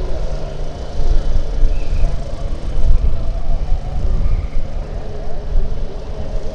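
A light single-engine airplane's piston engine and propeller running on the ground at changing power, its tone wavering up and down, over a loud, uneven low rumble.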